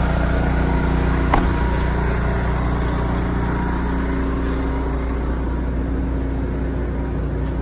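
Onan 4 kW RV generator running steadily with an even engine hum. It is powering the coach's air conditioning. About a second and a half in, a single thump, as the cab door is shut.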